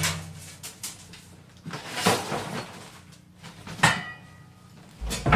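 Knocks and thumps of a bathtub being yanked and shifted in its alcove during demolition. One sharp knock just before four seconds in rings briefly, and a low thump comes near the end.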